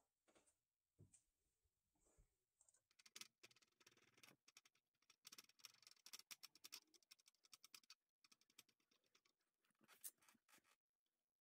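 Faint, rapid dry scratching and rubbing of a printed circuit board being cleaned of solder flux, mostly from about three seconds in until near the end.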